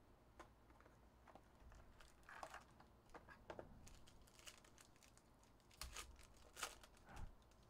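Faint crinkling and tearing of a foil trading-card pack wrapper as it is opened by hand, a scattering of short crackles, the loudest about six to seven seconds in.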